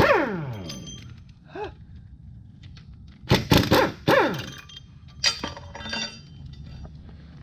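Loose metal engine parts clanking and clinking as they are dropped and handled: a sharp clank right at the start with a ringing tail, a cluster of clanks a little past three seconds in, then lighter clicks and a short rattle.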